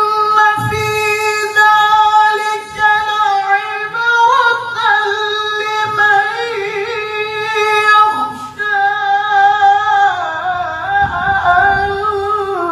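Unaccompanied Qur'an recitation (tilawah) by a qari in a very high register. He holds long notes with wavering, ornamented turns, breaking briefly about two thirds of the way in before taking up another long held note.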